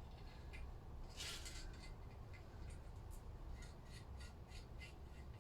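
Faint workshop handling sounds from working on engine parts: a brief rub or scrape about a second in, then a scattering of light clicks and ticks, over a low steady hum.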